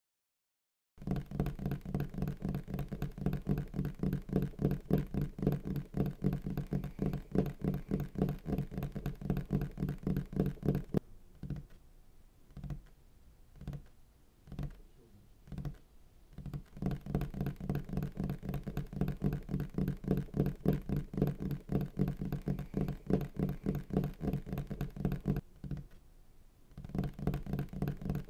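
A fast, dense clatter of short taps over a steady low hum. It starts about a second in, thins to a few single knocks around the middle, then starts up again, with a short break near the end.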